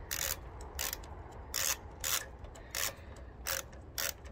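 Socket ratchet wrench loosening a 10 mm nut. The pawl clicks in short bursts on each back-swing, about seven strokes at an uneven pace.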